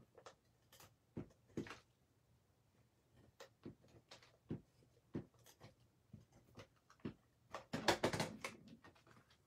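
Paper card stock being handled while a tape runner lays adhesive on it: faint, scattered clicks and rustles, with a louder burst of paper rustling and knocks about eight seconds in.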